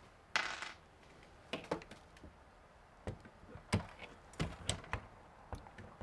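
Light, scattered clicks and knocks of a cordless drill/driver and its bit being handled against a metal RV door latch while its screws are taken out, about nine in six seconds, with one short scrape near the start. The drill motor is not running.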